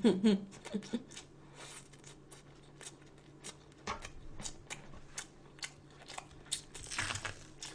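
Close-up chewing of crunchy food: a run of short, sharp crunches, thickest near the end.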